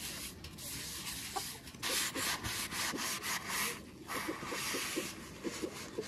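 Wad of paper towel rubbing oil across the hot steel top of a Blackstone griddle in wiping strokes, seasoning the surface. The rubbing is loudest for about two seconds in the middle.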